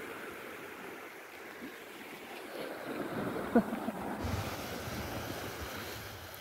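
Small waves washing onto a sandy shore, with wind buffeting the microphone. A brief sharp sound stands out about three and a half seconds in.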